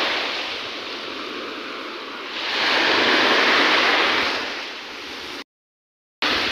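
Surf washing up a sandy beach: steady rushing of foamy waves, swelling louder for a couple of seconds in the middle as a wave runs up the shore, then easing. The sound cuts out abruptly for under a second near the end.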